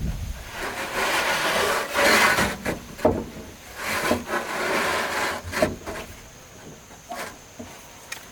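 Two long scraping strokes with sharp knocks between them, the sound of wood being rubbed or worked by hand, growing quieter near the end.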